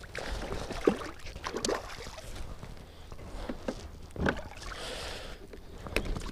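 A hooked bass splashing and thrashing at the water's surface beside a kayak as it is reeled in and swung aboard, with scattered splashes and several sharp knocks against the hull.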